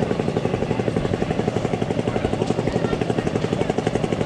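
A small engine running steadily, with an even, rapid pulse of about ten to twelve beats a second.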